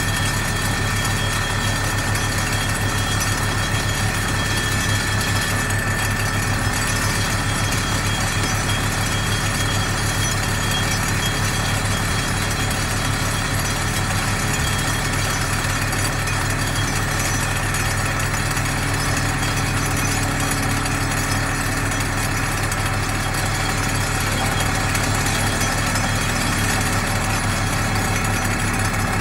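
ThyssenKrupp MS-10 hydraulic vibratory pile hammer running on a steel pile as it drives it into the ground: a loud, steady, rapid buzzing hum with engine noise beneath it.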